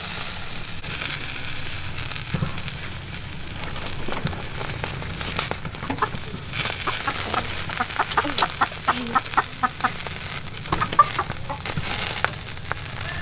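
Chickens clucking in a quick run of short notes from about six seconds in, over the steady hiss of an open fire singeing a raw pork leg on a wire grill.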